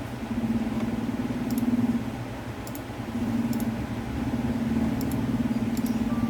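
A steady low motor hum, like an engine running, that swells, dips briefly in the middle and swells again.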